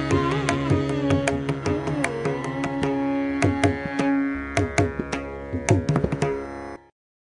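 Instrumental music interlude: quick drum strokes over steady held notes, fading and then cutting off abruptly shortly before the end.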